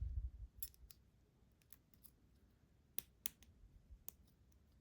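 Faint, scattered sharp metallic clicks, about six, from a shim and small lock parts being handled while a lock is taken apart, with a soft low bump right at the start.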